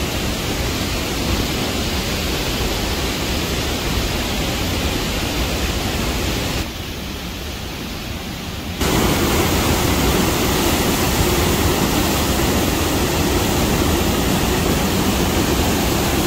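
Steady rush of a nearby waterfall. It drops abruptly about seven seconds in and comes back louder about two seconds later.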